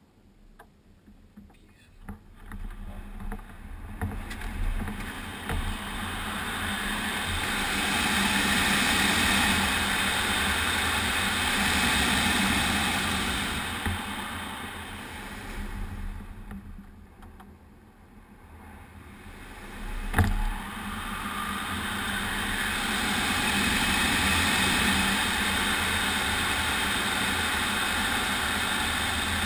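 Airflow rushing over the canopy of an MDM-1 Fox aerobatic glider, heard from inside the cockpit. It starts almost silent, builds to a loud rush, fades about halfway through and builds again, rising and falling as airspeed builds and bleeds off through the aerobatic manoeuvres, with one sharp knock about twenty seconds in.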